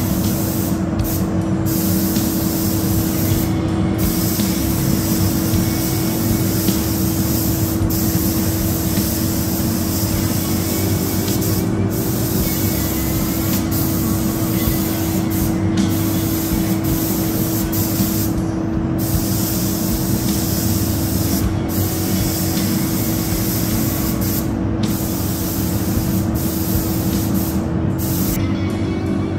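Compressed-air paint spray gun hissing steadily as paint is sprayed onto motorcycle panels, the hiss breaking off briefly every few seconds as the trigger is let off, over a steady low hum.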